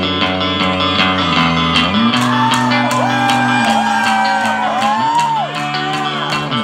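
Live rock band playing an instrumental stretch: electric guitars holding chords over drums with regular cymbal hits. The chords change about two seconds in and again near five seconds, and a high line slides up and down in pitch in the middle.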